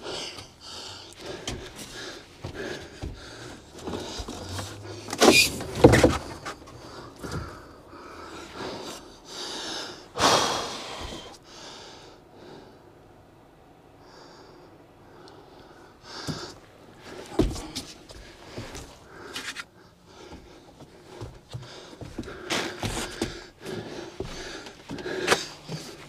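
Muffled knocks, bumps and scrapes of PVC conduit being worked through a cramped attic space behind a wall, mixed with a person's heavy breathing. The loudest knocks come about five and six seconds in, with a longer scrape around ten seconds and a sharp knock near seventeen seconds.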